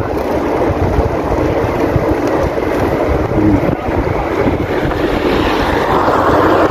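Wind buffeting the microphone of a handlebar-filming bicycle rider moving along a paved road, a steady rush that grows stronger about five seconds in.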